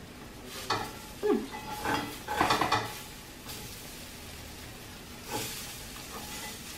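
Banana-oat pancake batter sizzling faintly in a frying pan, with a few scrapes and knocks of a utensil against the pan in the first three seconds and once more near the end.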